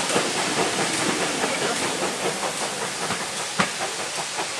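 Steam hissing around a departing steam train as its coaches roll past and away, wheels clicking in a steady rhythm, with one sharp clank about three and a half seconds in.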